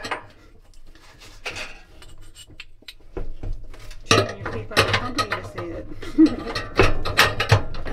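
Metal clinking and knocking in the stainless steel drum of a Fisher & Paykel dryer as a hand works the main bearing shaft at the hub in the centre of the drum's back. Quiet at first; the clatter of sharp knocks starts about three seconds in.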